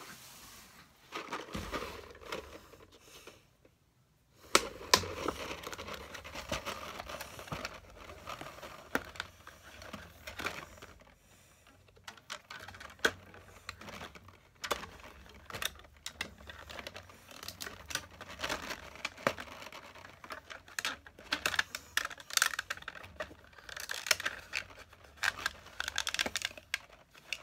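A clear plastic zip case of felt-tip markers being handled: the plastic rustles and crinkles while the markers click against each other and the case. The clicks come thicker in the last few seconds.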